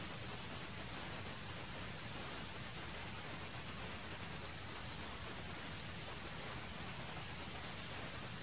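Steady insect chorus in the forest canopy: a continuous high-pitched buzz that holds one pitch throughout, over faint even background hiss.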